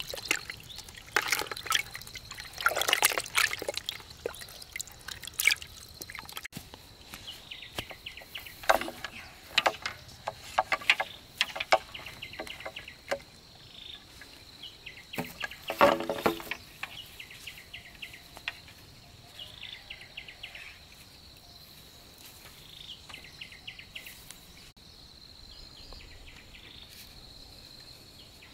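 Water splashing and sloshing in irregular bursts, loudest about halfway through and dying down over the last several seconds.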